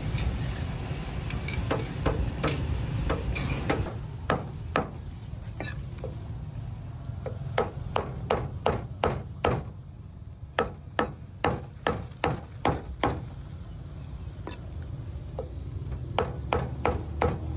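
A cleaver chopping grilled meat on a thick round wooden chopping block: runs of sharp chops about two a second, with pauses between runs and a quicker run near the end. A steady low rumble sits underneath.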